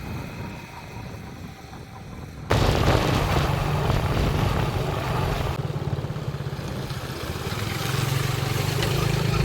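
Motorbike engine running on the move, with a deep rumble of wind buffeting the microphone. The level jumps suddenly about two and a half seconds in and shifts again later, where separate clips are cut together.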